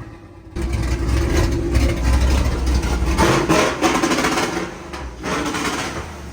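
Burnout truck's engine held on its newly installed two-step rev limiter, its exhaust dumped ahead of the muffler, giving a rapid string of sharp pops and bangs over a low rumble. It starts about half a second in and eases off toward the end.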